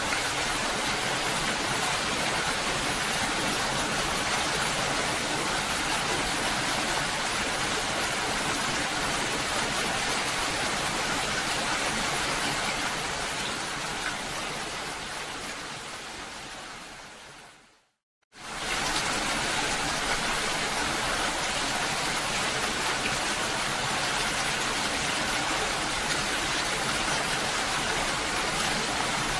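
Steady rain, an even hiss that fades out over a few seconds to a brief silence a little past the middle, then starts again suddenly at full level.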